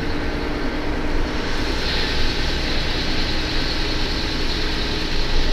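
The Scania F113 bus's front-mounted six-cylinder diesel engine running steadily, heard from inside the cabin right beside its engine cover: a deep rumble, with a higher hiss growing about two seconds in.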